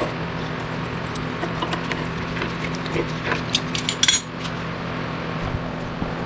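Metal tools clinking and tapping against metal during suspension work, with a cluster of sharp clinks about four seconds in, over a steady low hum.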